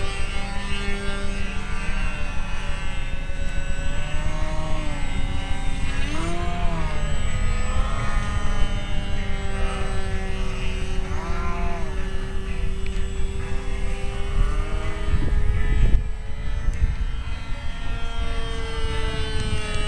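Fox .45 two-stroke glow engine of an RC model airplane in flight, a propeller whine whose pitch rises and falls several times as the plane manoeuvres. There is a brief low thump about four-fifths of the way through.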